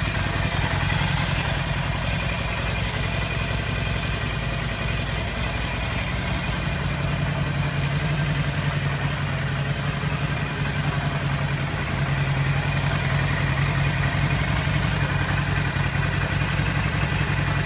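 2013 Harley-Davidson XL1200X Forty-Eight's air-cooled V-twin engine idling steadily. It is running cleanly on an RSD air cleaner with no abnormal noises.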